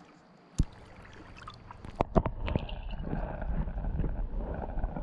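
A camera being lowered into shallow lake water. There is a sharp knock about half a second in, then a few clicks and splashes as it goes under about two seconds in, then a steady, muffled low rumble of water moving against the submerged microphone.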